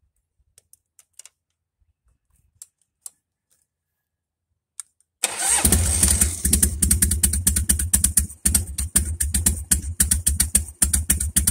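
Harley-Davidson Sportster V-twin cranked by its starter about five seconds in, catching and running with a rapid pulsing exhaust beat. Its freshly realigned starter solenoid contacts are now passing current. A few light clicks of the key and switches come before it.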